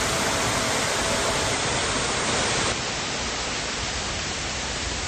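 Waterfall rushing, a loud, even wash of falling water; the level drops a little partway through.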